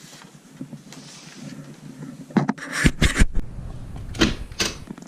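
A quiet stretch, then from about two and a half seconds in a cluster of sharp knocks and clunks, with two more near the end.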